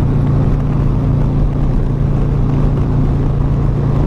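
Harley-Davidson motorcycle cruising at a steady speed: a steady low engine drone with wind and road noise over it.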